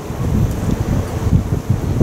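Wind buffeting the microphone, a low uneven rumble, over the exhaust of an approaching steam locomotive working.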